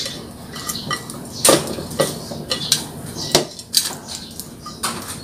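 A plate tipped and tapped against a blender jar as roasted shallots, garlic and chillies are knocked off it into the jar: about half a dozen irregular clinks and taps.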